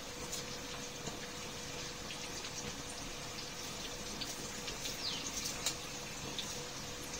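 Stuffed bitter gourds sizzling gently in oil in an iron kadhai, with a slotted steel spatula clicking and scraping against the pan as they are turned. A few short high squeaks come about five seconds in.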